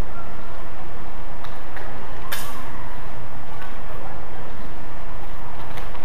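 Steel messers clashing in a fencing bout: one sharp strike about two and a half seconds in, with a few lighter knocks around it, over a steady background noise.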